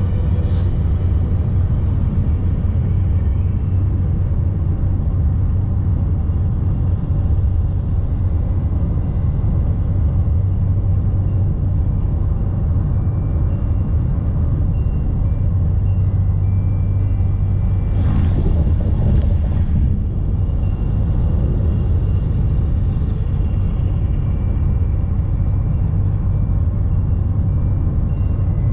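Steady low road rumble of a car driving at highway speed, tyre and wind noise heard from inside the cabin, with a brief louder whoosh about two-thirds of the way through.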